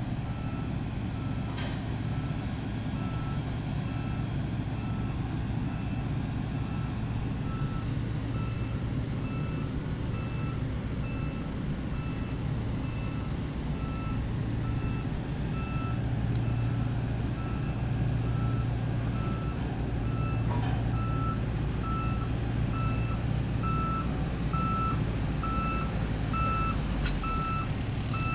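Backup alarm on heavy equipment beeping steadily, a little over once a second, over the low steady running of a diesel engine; the beeps grow louder near the end. A few brief sharp knocks stand out.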